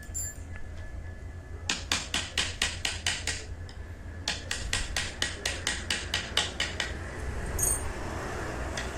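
Wood-carving chisel being struck with a mallet, cutting into wood in quick light taps, about five a second. The taps come in two runs with a short pause between them.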